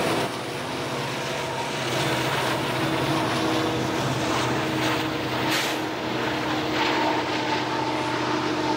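Diesel locomotives of a BNSF freight train running past, with the steady whine of a camera drone's propellers over them.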